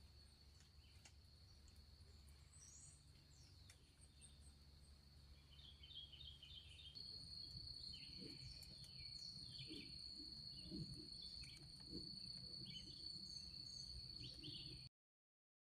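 Faint outdoor ambience dominated by a steady, high-pitched insect drone that gets louder about halfway through, with scattered faint chirps and a few soft low knocks; the sound cuts off abruptly about a second before the end.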